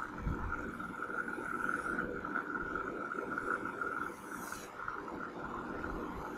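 Chalk scraping on a chalkboard in two long strokes as a curve is drawn, faint, over a steady high hum.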